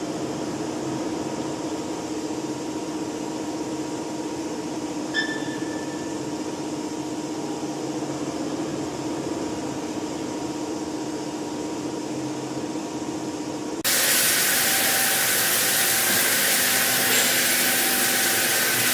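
Steady hum of running machinery with a held tone, and a short high beep about five seconds in. About fourteen seconds in it cuts abruptly to a louder, even hissing machine noise.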